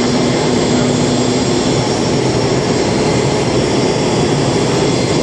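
Steady jet engine noise from aircraft running, with a low hum that fades out about a second and a half in.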